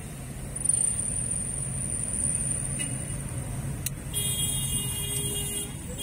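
Car cabin and city traffic noise: a steady low rumble, with a tonal sound, like a horn or beep, lasting about a second and a half from about four seconds in.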